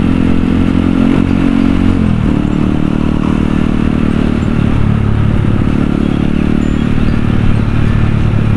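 Kawasaki KLX supermoto's single-cylinder four-stroke engine running under the rider while cruising in traffic. About two seconds in the engine note drops as the revs fall, then it holds a steady lower pitch.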